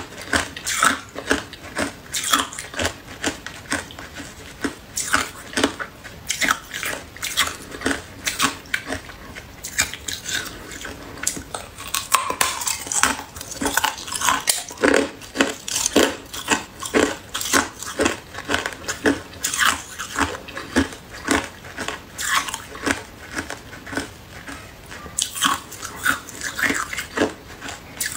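A person biting and chewing hard, clear ice: a continuous run of sharp, crisp crunches and cracks, several a second.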